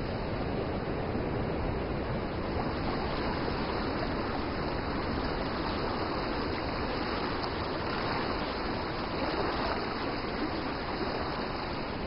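Muddy river water rushing through rapids and splashing over rocks, a steady, even wash of churning water.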